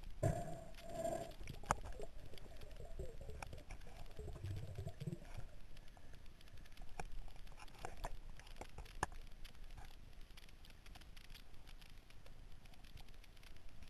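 Underwater ambience picked up by a camera in its housing: a low water rumble with scattered sharp clicks, and a few short pulsing tones in the first second or so.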